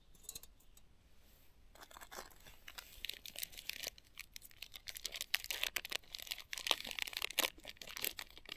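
Plastic wrapper of a porridge bar being torn open and crinkled by hand, a quick run of crackles that starts about two seconds in.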